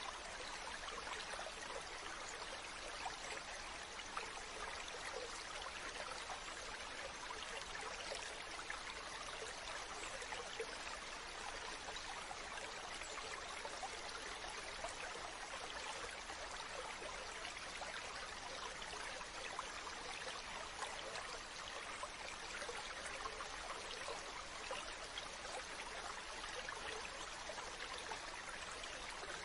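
Mountain stream running over rocks, a steady rush of water with fine splashing and trickling.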